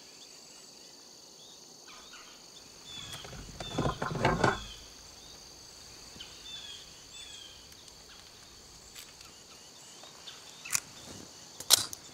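Steady chirring of insects in a forest ambience. A louder, brief sound rises about four seconds in, and two sharp clicks come near the end.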